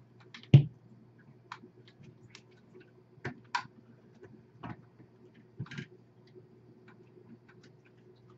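Scattered clicks and knocks of plastic tubing and push-lock fittings being handled as the water lines are reconnected to a reverse-osmosis/deionisation (RODI) filter unit, the loudest a dull knock about half a second in. A faint steady low hum runs underneath.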